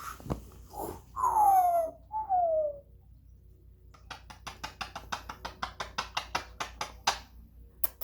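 African grey parrot giving two whistled calls that fall in pitch, the first about a second in and the second just after. From about halfway on comes an even run of sharp clicks, about five a second.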